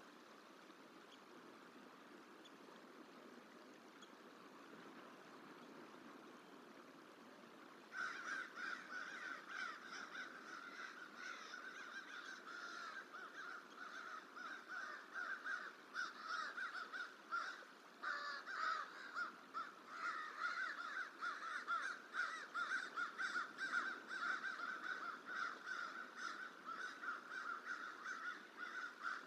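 A steady faint background hiss, then about eight seconds in an American crow starts cawing in rapid, unbroken harsh calls that run on. It is mobbing a juvenile bald eagle, trying to drive it off its nesting territory.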